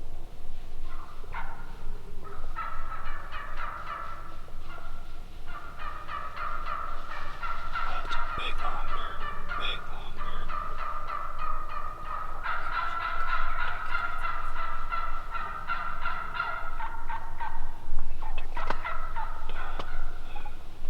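Turkeys calling: a near-continuous run of rapid, pulsing gobbles and chatter, easing off briefly about five and twelve seconds in and thinning out near the end.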